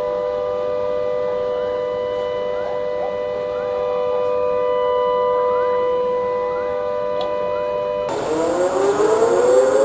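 Tsunami warning civil-defense siren sounding a steady, loud chord of several held tones. About eight seconds in the sound cuts off abruptly, and a siren winds up, its tones rising in pitch.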